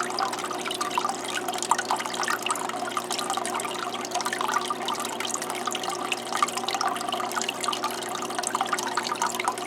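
Small paludarium waterfall running: water trickling and splashing steadily over the rocks, with many small drips. A faint steady hum sits underneath.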